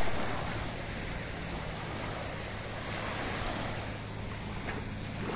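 Speedboat engine running with a steady low hum under rushing water and wind buffeting the microphone, loudest in the first moment and then settling.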